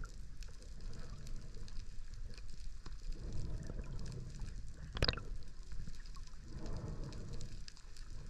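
Muffled underwater sound of a diver finning slowly at the surface: a low water rumble that swells and fades, with faint scattered ticks and one short sharp sound about five seconds in.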